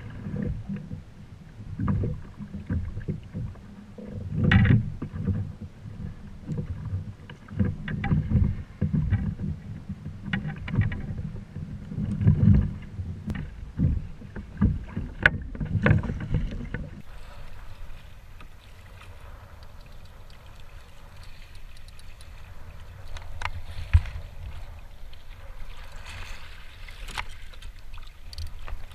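Wind buffeting the microphone and choppy water slapping against a plastic fishing kayak, in uneven low rumbles and thumps. About two-thirds of the way through it changes to a quieter, steadier wash of water with a faint high whine.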